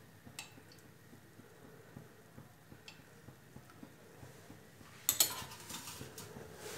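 Mostly quiet with a few faint taps, then about five seconds in a sharp clink of a metal spoon, followed by soft sounds of dough being kneaded by hand on a stone counter.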